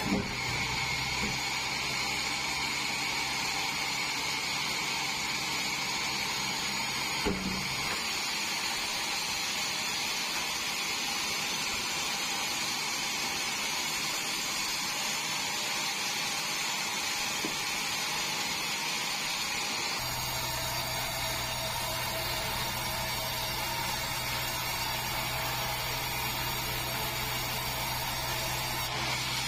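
Sawmill band saw running, sawing a large meranti log: a steady machine noise with a high ringing tone. A low hum underneath cuts out after a knock about a quarter of the way in and comes back abruptly about two-thirds through.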